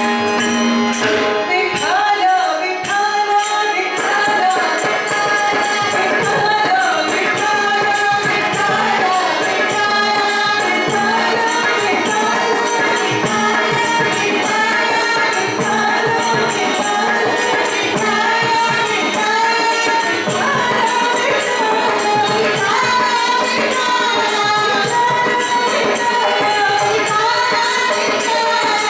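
Carnatic devotional song: women's voices singing a gliding melody over instrumental accompaniment, with a steady jingling percussion beat.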